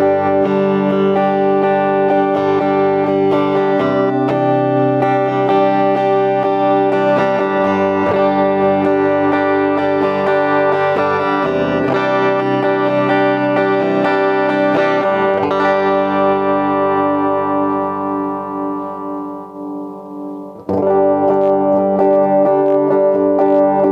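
JCraft S1H electric guitar on its neck pickup, played clean with no amp or pedal, straight into a sound card. Ringing chords and notes fade away for a few seconds, then fresh strumming starts again near the end.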